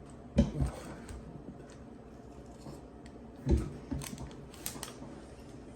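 A person eating close to the microphone: a few short, low thuds and soft mouth noises twice, about half a second in and again past three seconds, with small clicks from handling food and utensils between them.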